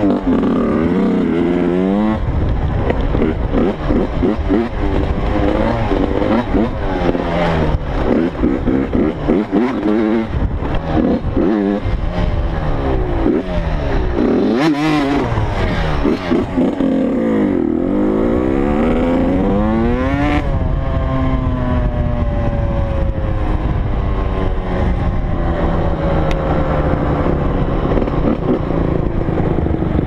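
Dirt bike engine heard from the rider's helmet, revving up and down over and over as he accelerates and backs off. About two-thirds of the way through the pitch settles into one long slow fall as the bike eases off. A few sharp knocks are heard along the way.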